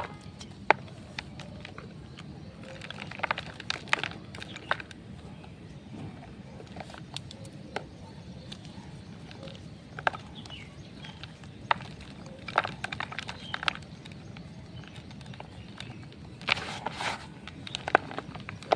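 Blocks of dyed gym chalk being crunched and crushed: irregular sharp cracks and short crumbly clusters of crackles, several seconds apart.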